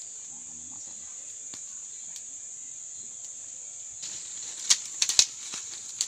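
Steady high-pitched drone of insects. From about four seconds in, a cluster of sharp snaps and rustles breaks in, the loudest near five seconds.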